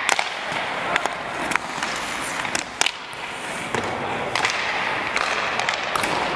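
Ice hockey practice: skate blades scraping the ice, with scattered sharp clacks of sticks and pucks.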